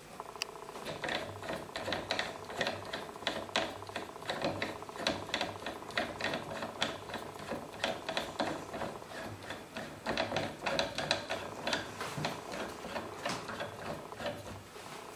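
Homemade lathe driven by an electric drill, spinning a cue shaft in its roller supports. It gives a steady rhythmic clatter of sharp clicks, about four to five a second, over a faint hum.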